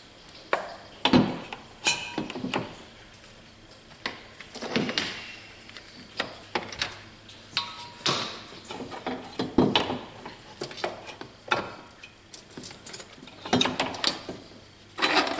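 Hand tools and metal parts clinking and knocking in an engine bay: a string of irregular sharp clicks and clanks with brief rustling between them. The loudest knocks come about a second in and again about ten seconds in.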